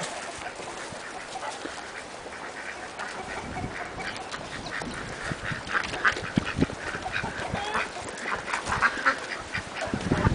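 Flock of domestic ducks quacking, the calls growing busier from about four seconds in.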